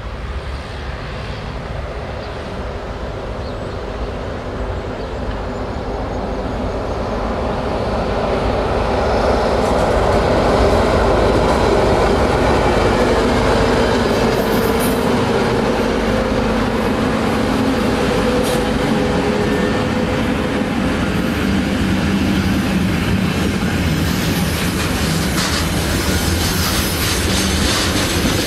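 Freight train hauled by KiwiRail EF class electric locomotives approaching and passing close by. It grows louder to a peak as the locomotives go past about ten seconds in, then settles into the steady running noise of container wagons rolling by, with wheel clicks on the rails near the end.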